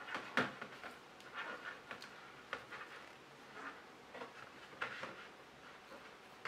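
Knitting needles clicking lightly and yarn rustling as stitches are worked by hand, a handful of faint, irregular clicks.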